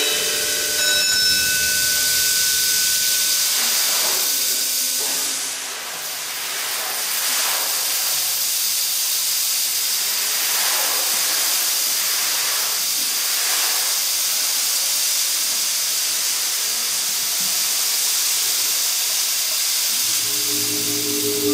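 A percussion ensemble making a steady hissing wash of noise that swells and fades every few seconds, with a faint held high tone in the first few seconds. Pitched mallet-percussion notes come in near the end.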